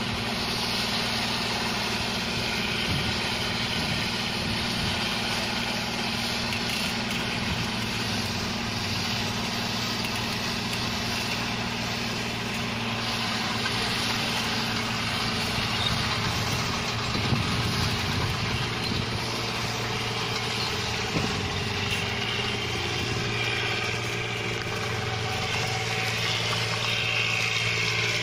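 Rice combine harvester's diesel engine running steadily while cutting paddy: a constant low engine drone with a dense mechanical whir over it, swelling slightly now and then.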